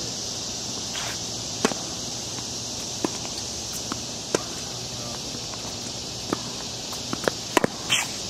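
Tennis ball struck by rackets and bouncing on a hard court during a rally: single sharp pops every second or so, with several quicker knocks close together near the end. Under them a steady high insect drone.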